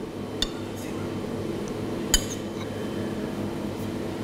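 A metal spoon clinking lightly against a ceramic plate a few times as grapefruit segments are set down, the sharpest clink about two seconds in, over a steady low hum.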